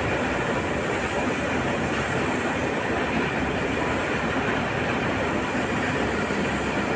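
Heavy earthmoving machinery (excavators and a wheel loader) working a heap of iron ore pellets: a loud, steady mechanical noise that does not let up.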